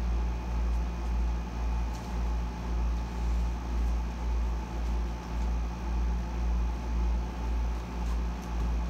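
Air conditioner running: a steady low hum that throbs about twice a second, with a faint steady whine higher up.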